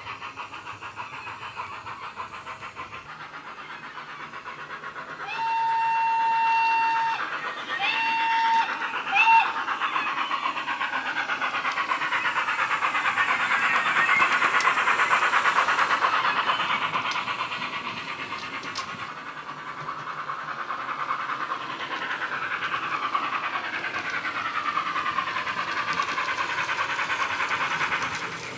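Wheeltappers steam sound file on the DCC sound decoder of a Bachmann Webb Coal Tank model locomotive, playing through a small sugarcube speaker: a steady run of exhaust beats as the engine runs. About five seconds in the whistle sounds, one long blast followed by a shorter one and a brief third.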